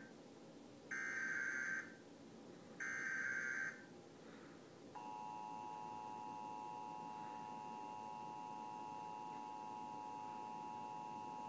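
Emergency Alert System tones played through a TV speaker: two short bursts of the digital SAME header, each about a second long, then about five seconds in the steady two-tone attention signal starts and holds.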